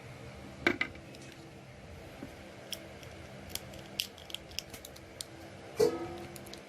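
Small sharp clicks and taps of a plastic LOL Surprise doll and its tiny clothes being handled while the doll is dressed. The clicks are sparse at first and come more often in the second half, with a brief voice sound about a second in and again near the end.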